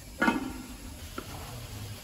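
A sharp metallic clank with a short ring about a quarter second in, as a metal part is set down on a bare Scania DC16 V8 engine block, followed by a faint tick a little after a second.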